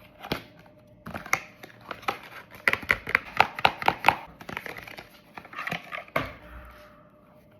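Plastic packaging crinkling and crackling as it is handled and opened, in a dense run of sharp, irregular crackles with a louder snap near the start and another about six seconds in.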